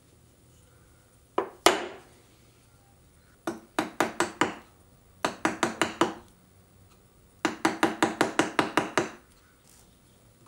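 A bamboo mallet tapping a chisel as it chops a shallow recess into a maple board. First two taps, then three quick runs of light, sharp taps, about six, six and ten strokes, each run lasting about a second.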